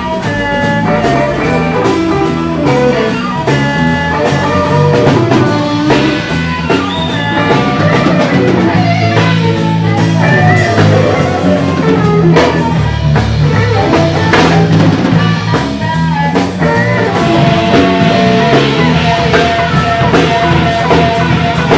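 Band music with a guitar over a drum kit, playing steadily.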